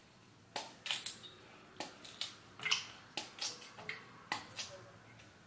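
A kitchen knife cutting small pieces off a peeled raw tapioca (cassava) root held in the hand: about a dozen sharp snaps at an uneven pace, two or three a second.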